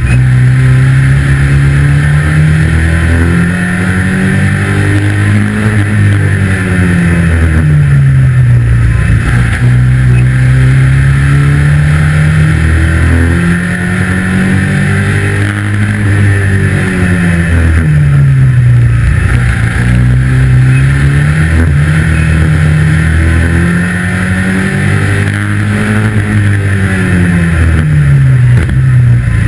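A 2-litre saloon stockcar's engine at race pace, heard from inside the cabin: its pitch climbs and falls again and again, every five or six seconds, as the car accelerates and eases off around the short oval, over a steady rushing hiss.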